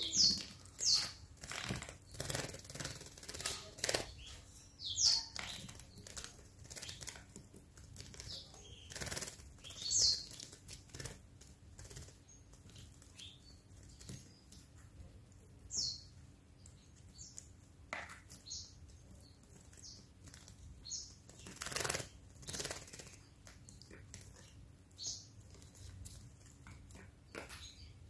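Domestic canary bathing in a small water fountain: repeated short bursts of wing-fluttering and splashing water, at irregular intervals. Brief high call notes that fall in pitch are scattered among the splashes.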